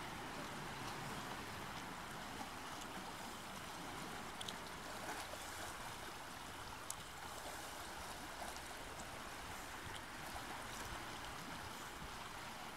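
River water rushing steadily around two people wading through it with a dirt bike, with a few faint splashes.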